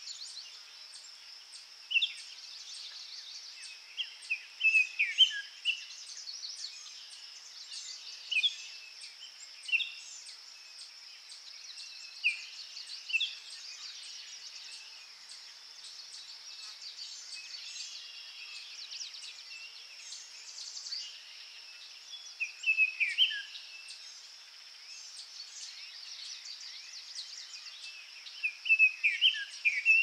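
Dry-forest ambience: a steady high insect drone with short bird chirps and calls breaking in every few seconds, in small clusters, busiest near the end.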